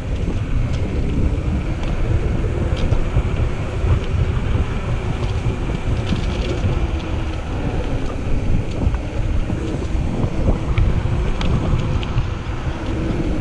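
Steady wind noise on the microphone and tyre noise from a YT Jeffsy mountain bike rolling along a dirt trail, with scattered clicks and rattles from the bike.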